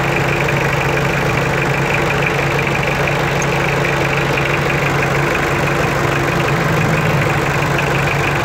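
Toyota 2C four-cylinder diesel engine idling steadily with its diesel clatter while the injection-pump timing (advance) is set by hand. The engine note shifts slightly about seven seconds in.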